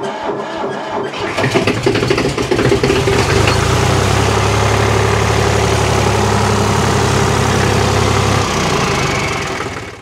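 Güldner G30 S tractor's diesel engine starting: it fires unevenly for the first two or three seconds, then settles into a steady run. It dies away near the end.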